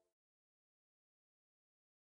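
Dead silence: the audio track has dropped out.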